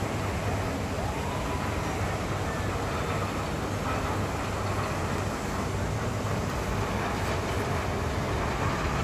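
Steady amusement-park din: a continuous rumbling, hissing noise with a low hum underneath, and a faint squeal that rises and falls about a second in.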